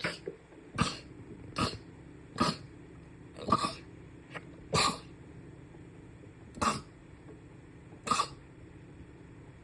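A run of about eight short, sharp sneezes, the first four coming quickly, a little under a second apart, and the rest more slowly.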